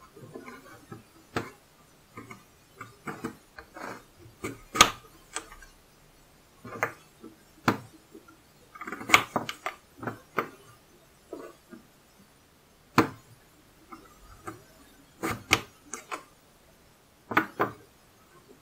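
Small kitchen knife cutting carrots on a plastic cutting board: irregular sharp knocks as the blade cuts through and hits the board, with short pauses between cuts.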